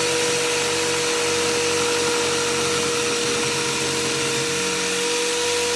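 A power tool running steadily: an even, loud machine noise with a constant whine.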